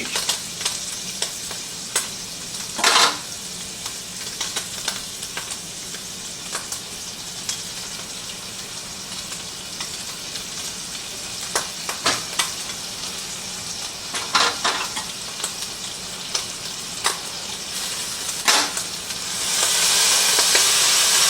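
Browned ground beef sizzling in a frying pan while it is stirred, with occasional knocks of the utensil against the pan. Near the end the sizzle swells into a much louder hiss as soy sauce and vinegar hit the hot pan.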